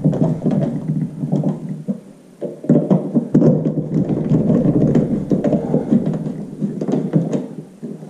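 Hand screwdriver driving the screws of a smoke detector mounting bracket into a ceiling electrical box: a rough, scraping grind of rapid short strokes, pausing briefly about two seconds in, as the bracket is tightened snug.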